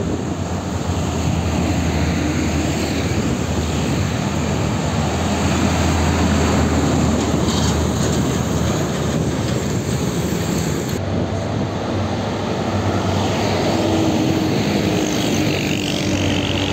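Heavy diesel trucks passing close by in traffic: a steady, loud engine rumble with tyre noise on the road.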